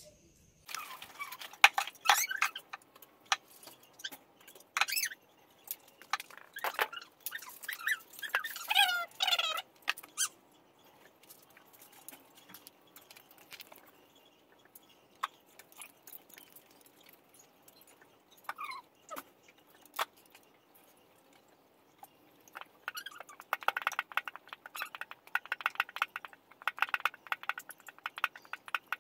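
Handling noise from working on speaker-box wiring: scattered clicks, scrapes and a few short squeaky glides, then a quick run of scratchy ticks in the last few seconds.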